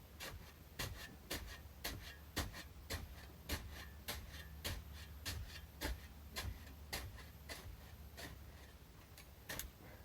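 Footsteps crunching in heavy, slushy wet snow, about two steps a second in an even rhythm.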